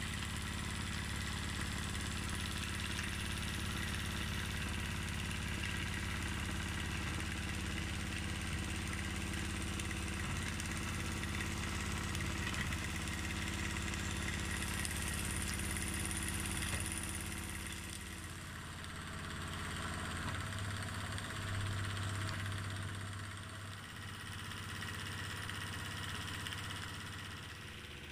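Wilesco live-steam model V-twin steam engine running steadily, with a fast chuffing of exhaust steam, hissing, and a light mechanical clatter. Its sound changes and grows a little softer in the last third.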